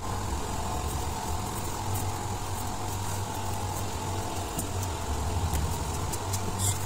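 A steady low mechanical hum with a faint constant tone above it, and a few light clicks near the end.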